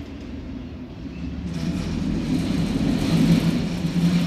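A vehicle passing close by: a rushing noise with a steady low hum that builds, peaks about three seconds in, and begins to fade.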